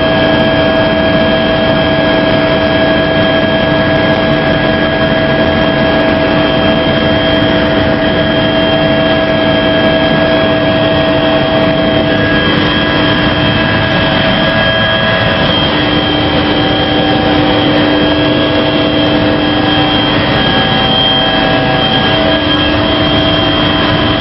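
Helicopter cabin noise in flight, heard from inside the cabin: a loud, steady drone of engine and rotor with several constant high tones over a dense rushing noise, the tones shifting slightly partway through.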